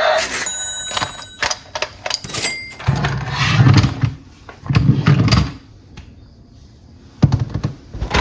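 Toys and packaging being handled: a run of sharp clicks and knocks, with two short low rumbles in the middle.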